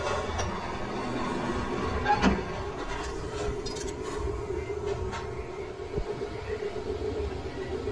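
Metal lathe running with a steady hum, with a few light metallic clicks and knocks as the nut in the chuck is handled.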